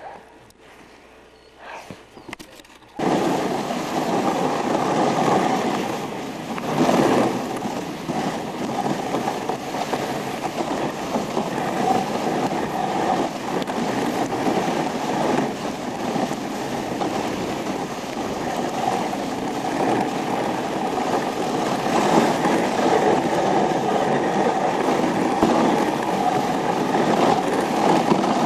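Steady rushing noise of a moving dog sled, its runners sliding over snow with wind on the microphone. It starts abruptly about three seconds in.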